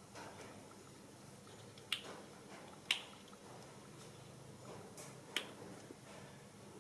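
A few sharp clicks, four in all, over faint room noise. The second is the loudest, and the last two come close together near the end.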